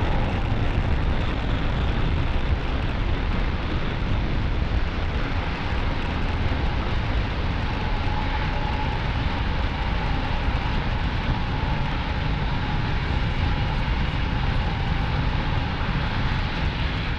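Falcon 9's nine Merlin 1D first-stage engines firing as the rocket climbs after liftoff, heard as a loud, steady rumble.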